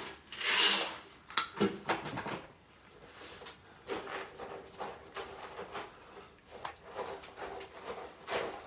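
A crowd of cats eating wet food from bowls on a tile floor: irregular small clicks and smacks of chewing and bowls knocking on the tile, with a brief rustling noise about half a second in and a faint steady hum underneath.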